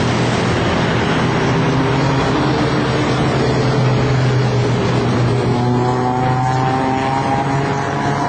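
Off-road 4x4 vehicle engine running steadily under load over rough noise, its pitch shifting and a higher whine rising about two-thirds of the way through.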